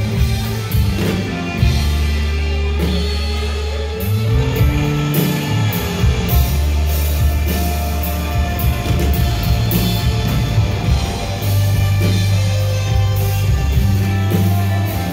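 A live rock band playing: a hollow-body electric guitar leads over bass guitar and a drum kit.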